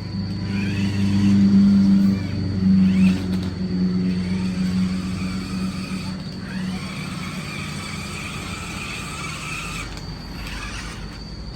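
Toy off-road RC car's electric motor and gearbox whirring as it drives, the whine rising and falling as the throttle changes. It is loudest in the first three seconds, then carries on more steadily.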